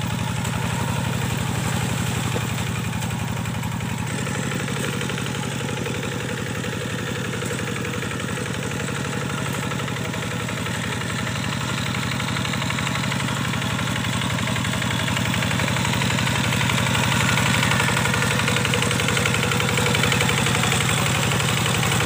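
Kubota diesel tractor engine running steadily under load while harrowing a flooded rice field, with a fast, even firing beat; it grows a little louder about two-thirds of the way in.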